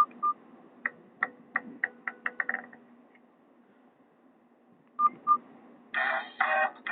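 Nokia 216 mobile phone's key tones: two short beeps, a quick run of about a dozen short clicky key tones, then two more short beeps. About six seconds in, a polyphonic ringtone starts playing in short chord blocks.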